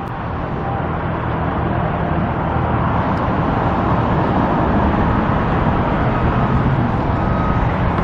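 Steady road traffic noise, slowly growing louder.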